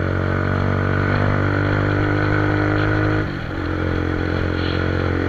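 Motorcycle engine running steadily while riding, with a brief dip in its sound about three seconds in.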